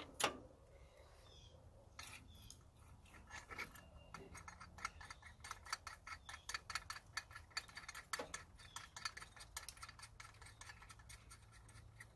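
Hands working a drive belt onto the power steering pulley and tensioner: a sharp knock just after the start, then a long run of quick light clicks and rubbing.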